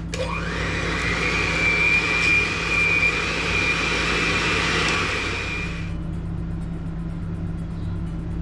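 Electric hand mixer whipping buttercream frosting: the motor spins up with a rising whine at the start, runs at a steady high whine as the beaters churn the frosting, then cuts off suddenly about six seconds in.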